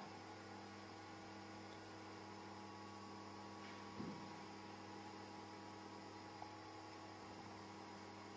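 Faint, steady electrical mains hum with a low buzz over light hiss, and a brief soft bump about halfway through.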